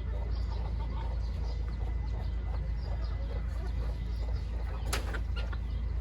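A flock of chickens clucking and cheeping as they feed, over a steady low rumble, with a sharp click about five seconds in.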